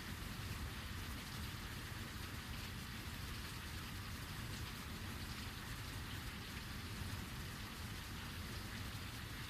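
Heavy rain falling steadily, an even hiss of drops hitting surfaces with no distinct thunderclap.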